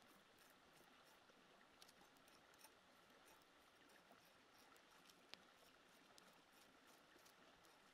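Near silence: faint scattered ticks and scrapes of a knife blade scraping the scales off a snake's skin against a log, over a soft steady hiss.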